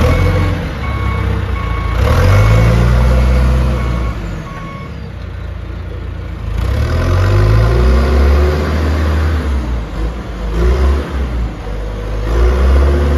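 John Deere 310SE backhoe's turbocharged diesel engine running and revving up as the machine drives off. Its backup alarm beeps about once a second for the first five seconds while it reverses.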